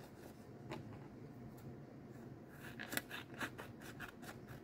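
Faint crinkling and rubbing of a sheet of paper being folded and creased by hand, then a few sharp snips of scissors cutting into it in the second half.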